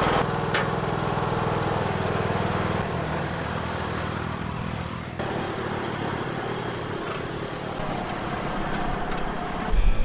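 Ride-on lawn tractor engine running steadily at idle, just started with the key.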